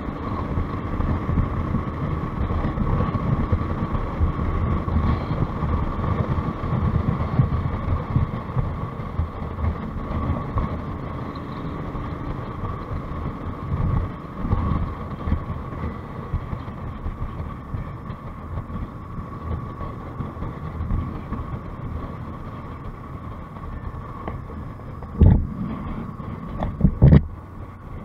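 Motorcycle riding steadily at road speed: engine and tyre rumble under wind rushing over the microphone. Two or three sharp thumps come near the end.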